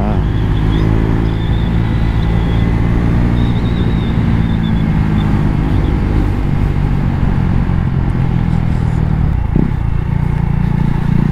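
KTM Duke 390's single-cylinder engine running at a steady speed while the bike is ridden, with wind and road noise.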